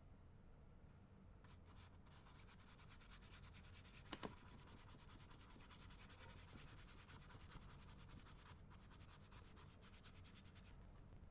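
Faint, rapid scratching strokes of an art tool working over the painting surface. They start about a second and a half in and stop shortly before the end, with one small tap about four seconds in.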